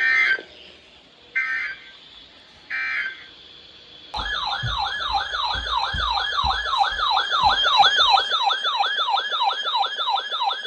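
Emergency Alert System end-of-message signal: three short bursts of data tones, about a second and a half apart, marking the close of the warning just read. About four seconds in, a siren-like alert tone starts and keeps sweeping up and down about three times a second.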